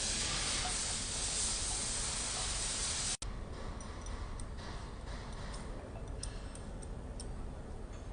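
A steady hiss that cuts off abruptly about three seconds in, followed by a quieter stretch of faint, scattered clicks and taps from tools and metal parts being handled on the machine.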